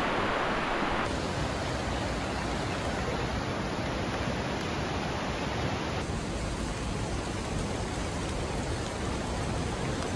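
Rain falling in rainforest, a steady rushing hiss. The noise changes tone abruptly about a second in and again about six seconds in.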